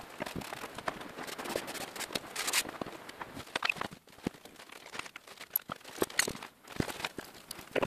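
Irregular clicks and knocks from tools and parts being handled, with a short break about four seconds in.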